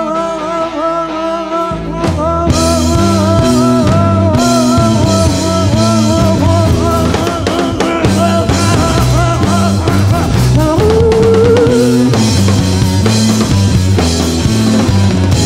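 Live rock band playing an instrumental passage: electric guitar carrying a wavering melody over bass guitar. The drum kit and cymbals come in hard about two seconds in, and near the middle a held note slides up.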